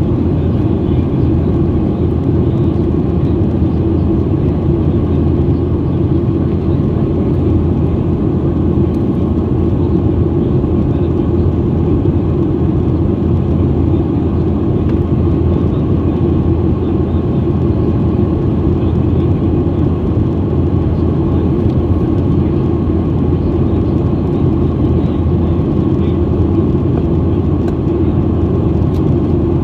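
Jet airliner cabin noise in flight: the steady rumble of airflow and engines heard from a window seat, deep and even with no change.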